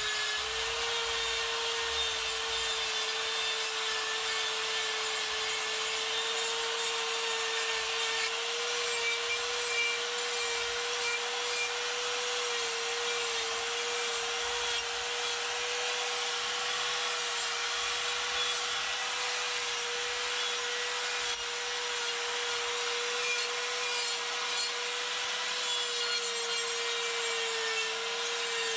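Electric die grinder running with a steady high whine, its half-inch coarse Saburrtooth flame burr rasping continuously into wood as it carves.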